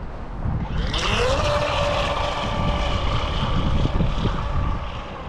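Brushless electric motor of a WLtoys WL915-A RC jet boat spinning up with a rising whine about a second in, then holding a steady high whine, with wind rumble on the microphone.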